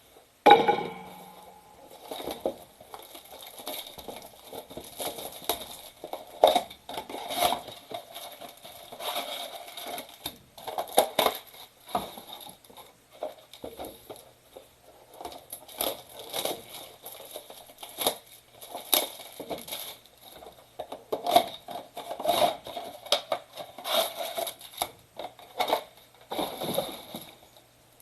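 Trading-card mega boxes being torn open by hand: irregular crinkling, tearing and crackling of packaging, with a sharp rip about half a second in.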